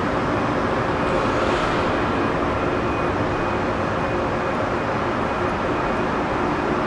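Steady mechanical hum of a metro station: a metro train standing at the platform with its onboard equipment humming, and an escalator running, with a short faint hiss about a second in.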